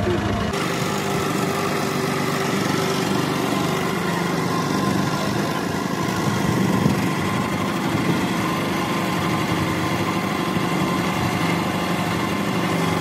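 Small motor boat's engine running steadily while under way.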